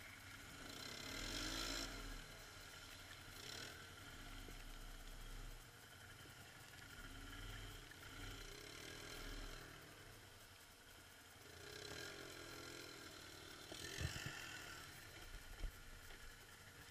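Can-Am ATV engine running and revving up and down in waves as the quad drives through mud and shallow water, with several bursts of splashing. Near the end come two sharp knocks less than two seconds apart.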